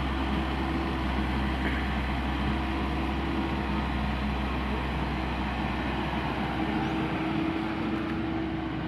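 Heavy diesel demolition machinery running steadily, a continuous engine drone with a low held hum.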